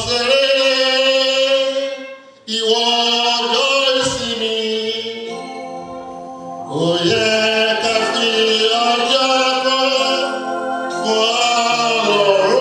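A man singing a slow song into a microphone, holding long notes in phrases of a few seconds, with a short break about two and a half seconds in and a quieter stretch around the middle.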